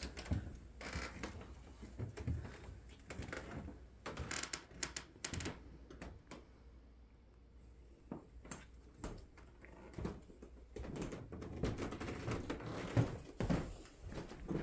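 Irregular footsteps and small knocks on old wooden floorboards, with a quieter pause about six seconds in.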